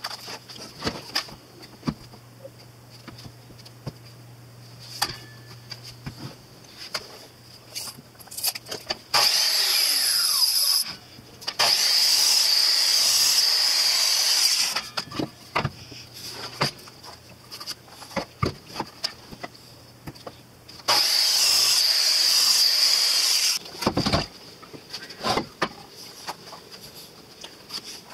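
A Bosch miter saw crosscutting maple boards: the motor runs in three bursts, the first short, the other two about two to three seconds each, with the blade cutting through the wood. Short knocks and clicks fall between the cuts.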